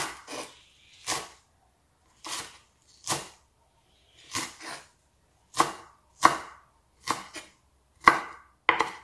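Chef's knife chopping Chinese chives on a wooden cutting board: a series of separate knife strikes against the board at an uneven pace, some in quick pairs, coming faster in the second half.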